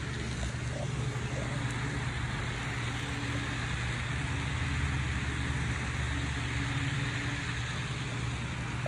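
Model trains running on a large layout: a steady low hum and rumble with a hiss over it, swelling slightly in the middle.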